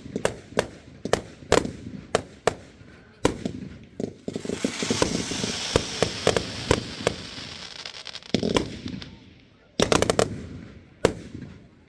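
Fireworks display: a rapid string of sharp bangs from bursting shells, several a second. About four seconds in, a dense crackling hiss sets in and fades over about four seconds, and a quick cluster of bangs comes near ten seconds.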